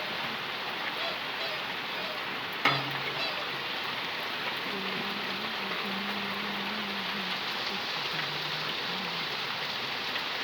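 Steady rain falling, an even hiss throughout, with one sharp knock about two and a half seconds in. A faint low hum comes in over the middle stretch.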